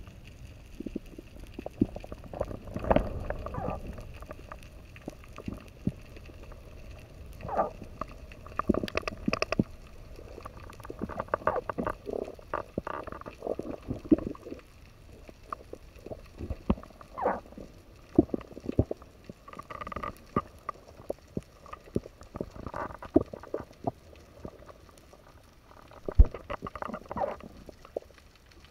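Underwater sound picked up by a diver's camera during a freedive: low rumbling with irregular clicks, knocks and gurgles, and one sharp knock near the end.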